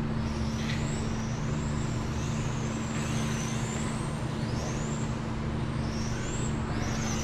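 High whines of 1/10-scale electric RC touring cars, their brushless motors and gears rising in pitch as the cars accelerate and falling as they brake, several times in turn. Under them is a steady low hum.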